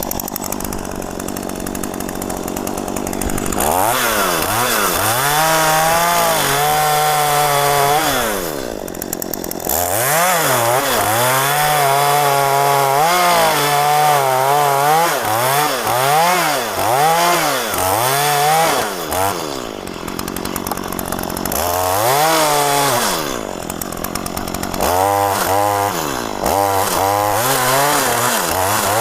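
Two-stroke gasoline chainsaw running hard on a mahogany tree. Its engine pitch keeps swinging up and down, about once a second, as the saw works and eases off. For the first few seconds it runs rougher and steadier before the swings begin.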